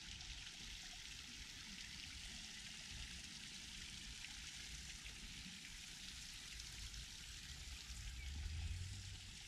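Steady rushing hiss of water from a small waterfall in a zoo enclosure. A low rumble swells near the end.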